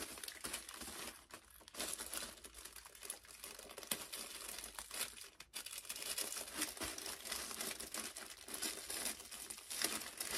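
Paper wrapping crinkling and rustling in the hands as it is unfolded and pulled off a boxed designer handbag, a busy, irregular crackle throughout.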